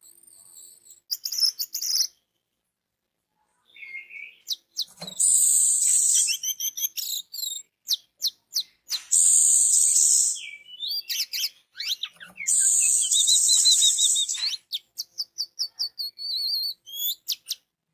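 Orange-headed thrush singing: loud, high-pitched phrases of rapid notes and trills, in several bursts with short pauses between them.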